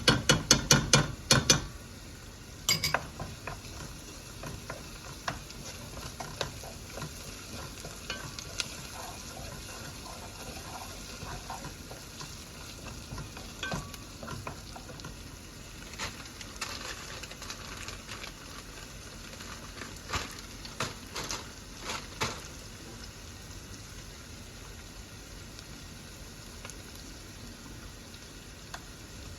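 Food frying in a pan with a steady sizzle, stirred now and then with a utensil that clicks against the pan. A quick run of sharp knocks opens it.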